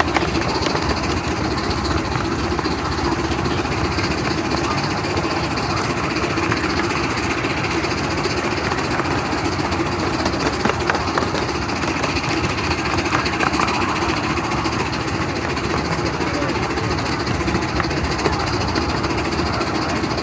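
Miniature 7¼-inch gauge steam train running, heard from aboard: a steady, loud running noise of wheels on the track and the locomotive working, with a fast, even rattle throughout.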